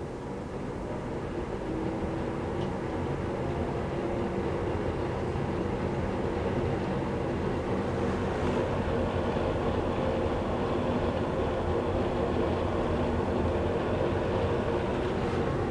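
Very old exhaust fan starting up: its small electric motor and blades spin up, the sound rising over the first couple of seconds, then running steadily with a low hum.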